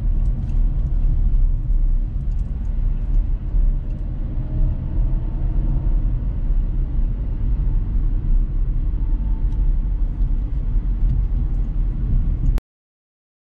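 Inside the cabin of a Dacia Sandero Stepway with the 1.5 dCi four-cylinder turbodiesel, driven slowly through town: a steady low engine and road rumble. It cuts off suddenly near the end.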